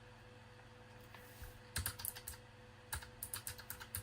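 Keystrokes on a Keychron K1 low-profile mechanical keyboard: a few key clicks just under two seconds in, one near three seconds, then a quick run of keypresses near the end.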